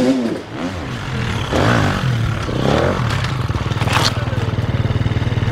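Enduro dirt bike engine working on a steep rocky climb, with scraping and one sharp clatter about four seconds in as the bike goes down. After that the engine runs on steadily at low revs.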